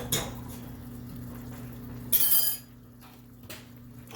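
Metal utensil clinking and scraping against a cooking pot as sour cream is stirred into a simmering curry, with a sharp clink at the start and a louder half-second clatter about two seconds in. A steady low hum runs underneath.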